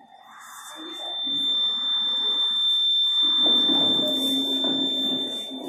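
A steady, high-pitched buzzer tone sounds for about five and a half seconds. From about halfway through, wooden school desks and chairs scrape and knock as they are moved.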